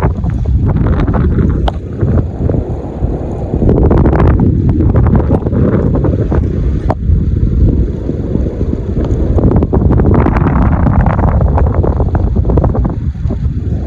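Blizzard wind buffeting the microphone: a loud, gusting rumble that surges and eases, with a few sharp clicks.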